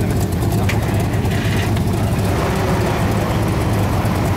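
1967 Corvette Stingray's 427 cubic-inch big-block V8 (L68) idling steadily, with a deep even exhaust note.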